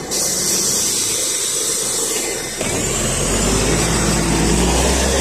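NefAZ 5299-30-51 city bus: a sudden loud hiss of compressed air from its pneumatics, then about two and a half seconds in its Mercedes-Benz M906 LAG natural-gas engine comes in low and grows as the bus pulls away under load.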